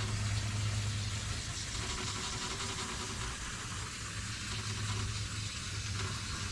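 Air-conditioning condensing unit running: a steady low compressor hum under the hiss of the condenser fan. The compressor is bypassing internally, drawing about half its rated amps while the system pressures stay poor.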